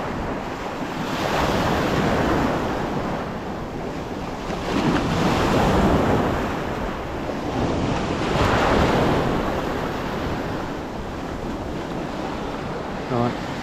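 Small choppy sea waves breaking and washing around the shoreline, swelling and fading every few seconds, with wind buffeting the microphone.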